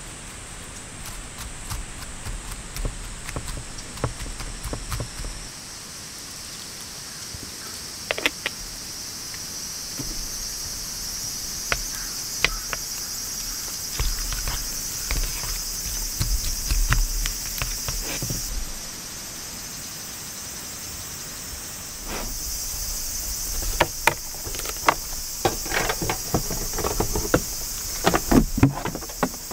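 Steady high insect chirring with gusts of wind rumbling on the microphone. Scattered clinks of chopsticks against a steel bowl as vegetables are tossed in flour, then a run of plastic clattering near the end as a stove case is opened.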